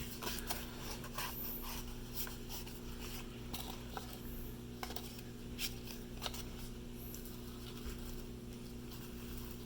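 Faint rustling and scattered light clicks from small objects and packaging being handled, over a steady low hum.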